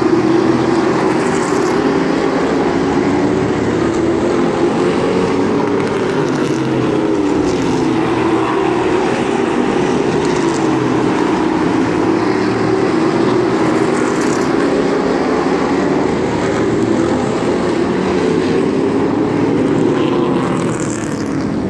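A pack of limited late model stock cars circling a short oval track, their engines making a loud, continuous drone whose pitch rises and falls slowly as the cars go round.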